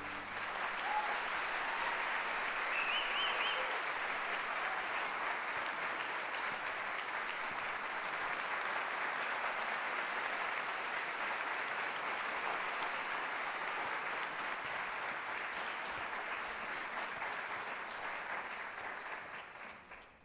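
Theatre audience applauding steadily after a ballet number ends, the clapping dying away near the end.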